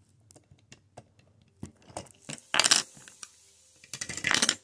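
LEGO plastic pieces being handled: scattered small clicks and taps, then two louder brief rustling sounds, about two and a half seconds in and near the end.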